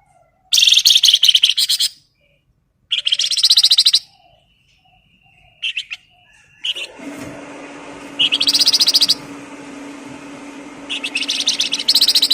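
Songbird giving rapid, rattling trilled bursts of about a second each, four long ones with two short notes between. About seven seconds in, a steady low hum and background hiss come in under the song.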